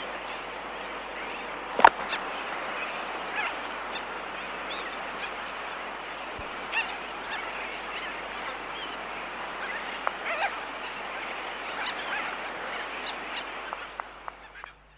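Laysan albatross colony close up: sharp bill clicks, one loud one about two seconds in, and short calls over a steady chorus of distant sooty terns. The sound fades out near the end.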